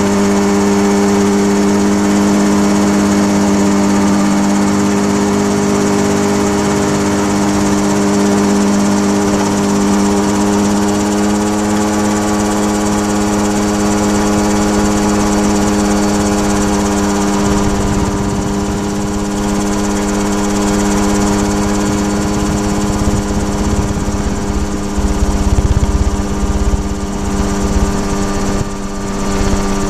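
Small single-cylinder model-aircraft engine running steadily at high speed, heard up close from on board. In the second half, wind rumbles and buffets against the microphone.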